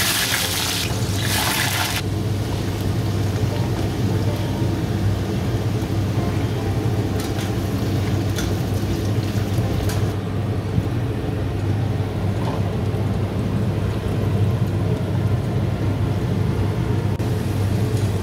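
Potatoes frying in hot oil in a pan: a loud burst of sizzling in the first two seconds, then a steady sizzle over a steady low hum, with a few light clicks in the middle.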